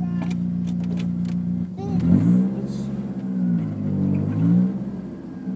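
Mazda FE3 2.0-litre DOHC four-cylinder engine, run on Megasquirt engine management, idling steadily in the car's cabin, then revving up and dropping back twice as the car pulls away.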